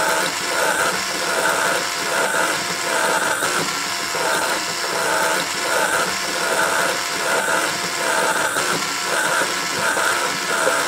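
Bio3 5.2 mm implant drill on a surgical handpiece running at low speed, cutting into a plastic model jaw to widen the implant site. The motor whirs steadily, with a regular pulsing roughly every three-quarters of a second.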